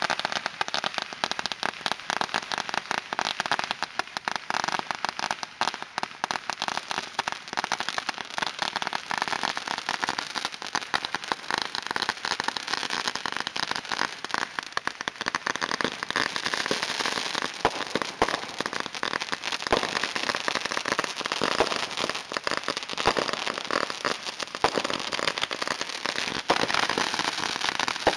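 Consumer fireworks going off at close range: a dense, continuous crackle of rapid small pops, growing thicker and louder from about halfway through.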